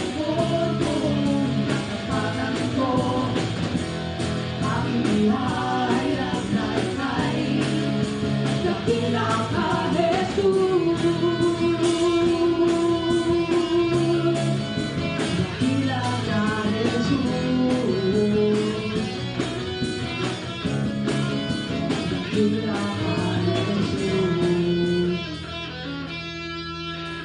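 Christian rock band playing, with guitar carrying the melody over a steady beat. About 25 seconds in the full band drops away and quieter guitar is left.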